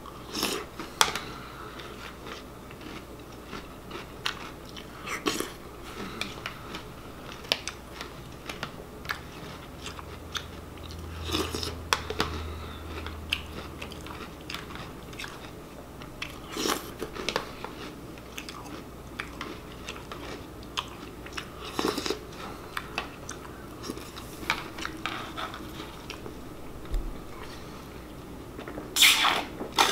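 A person chewing and crunching Apple Cinnamon Cheerios in milk, with short clicks of a spoon against a plastic bowl now and then. Near the end comes a louder stretch of slurping as the milk is drunk from the bowl.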